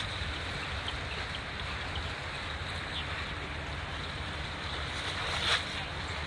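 Large 4,300-TEU container ship passing close by: a steady low rumble with water washing and wind on the microphone. A brief louder rush comes about five and a half seconds in.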